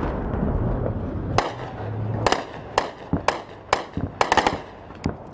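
Scattered gunfire: sharp single shots every half second to a second, with a quick run of four shots a little past four seconds in.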